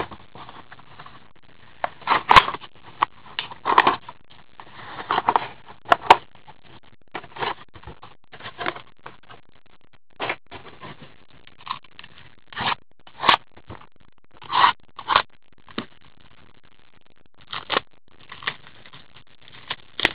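Gloved hands opening a cardboard trading-card hobby box and handling the foil-wrapped card packs inside: irregular scraping, rustling and crinkling of cardboard and wrapper.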